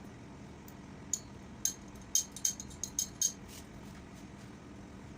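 Light metallic clinks of tools or small metal parts being handled: about eight sharp ticks between about one and three and a half seconds in.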